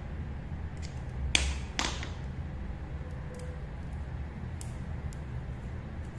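RJ45 crimping tool working on a UTP cable plug: two sharp clicks about half a second apart, then a few fainter clicks, over a steady low hum.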